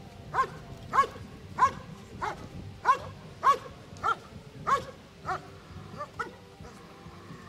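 A dog barking steadily and rhythmically at a helper hidden in a blind, a hold-and-bark in protection work, about two barks a second. The barks grow weaker and stop about a second before the end.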